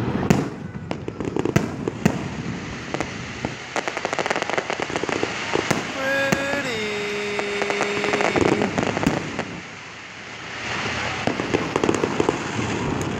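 Aerial fireworks bursting overhead: a dense run of sharp bangs and crackling. About halfway through, a drawn-out voice falls in pitch and holds for about two seconds.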